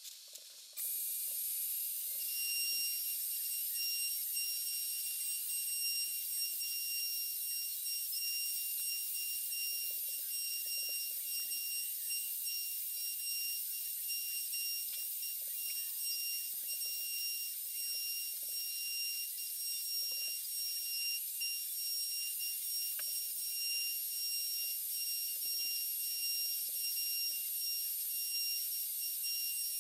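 Makita RT0701C compact router spinning a V-bit at high speed: a steady high-pitched whine over a hiss, coming in abruptly about a second in, with faint irregular scraping underneath as the CNC machine carves.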